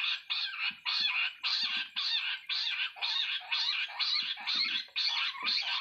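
Jungle bush quail calling: a harsh, chattering call repeated about twice a second without a break.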